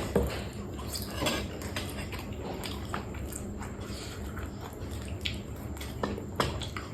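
Close-miked eating: chewing and biting, with scattered clicks and clinks of utensils against a dish.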